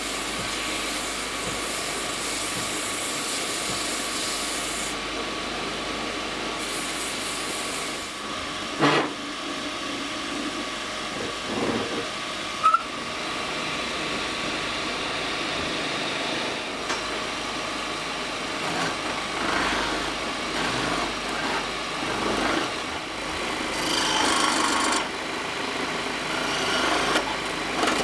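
Wood lathe running with a turned wooden vase blank being sanded by hand as it spins, a steady rubbing rasp. A couple of sharp knocks come in the middle, and in the last third a turning chisel cuts into the spinning wood in uneven scraping bursts.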